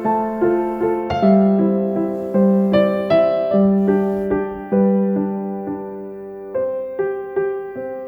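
Background music: a gentle solo piano piece with single notes struck at a steady pace over held low notes.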